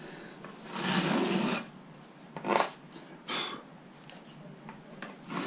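Sharp scoring blade scraping along a rule through thin skin into the Kevlar layer beneath, cutting a hinge line. There is one longer stroke about a second in, two short scratches, and another stroke at the very end.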